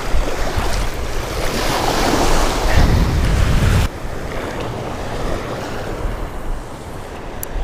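Small waves washing in the shallow surf, with wind buffeting the microphone. The noise is louder for the first few seconds and drops off suddenly about four seconds in.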